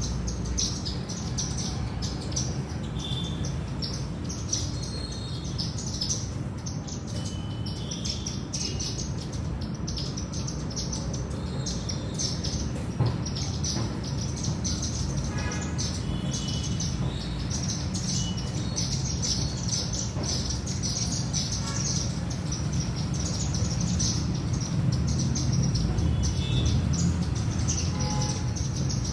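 A flock of Indian silverbills chirping continuously, many short high twitters and a few brief whistled notes, over a steady low background rumble.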